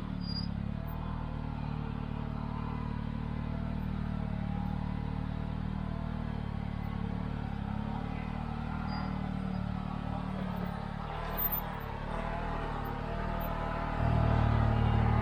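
Can-Am Maverick R side-by-side's turbocharged three-cylinder engine running steadily while driving on a trail, with a short louder bump about eleven seconds in. The engine gets louder near the end.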